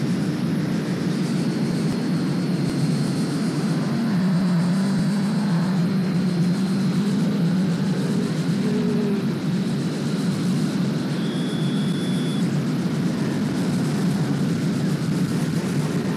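Harsh noise music: a steady wall of distorted noise over a low rumbling drone, with a faint high whine on top. A short high tone sounds about eleven seconds in.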